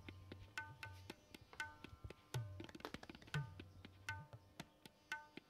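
Faint background music led by tabla drumming in a repeating rhythm, its deep bass drum bending in pitch under the ringing treble strokes.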